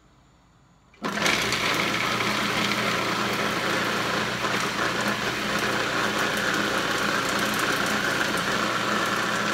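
Electric food processor starting up about a second in and running steadily, its blade chopping fresh green pepper, garlic, onions and cilantro.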